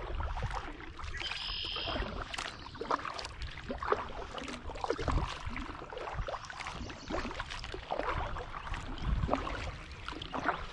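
Kayak paddle dipping and splashing in the water in uneven strokes as the kayak moves along, over a low rumble.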